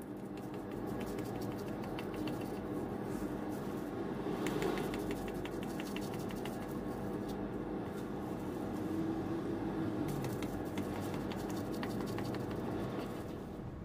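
Kitchen knife cutting through a soft steamed red bean cake and scraping and clicking on a plastic-wrapped cutting board, in small flurries about four seconds in and again near the end. A steady low hum runs underneath.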